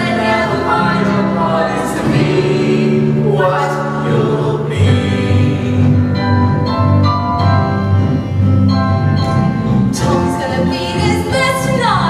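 Live rock-musical score: a band holding sustained chords that change every second or two, with choir-like singing, and a falling slide in pitch near the end.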